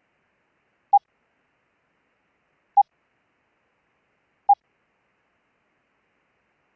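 Three single Morse code dits: short blips of one steady mid-pitched audio tone, evenly spaced nearly two seconds apart.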